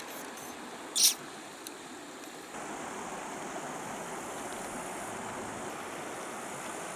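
Steady rush of river water flowing, with one brief, sharp hiss about a second in. The water noise steps up slightly from about two and a half seconds.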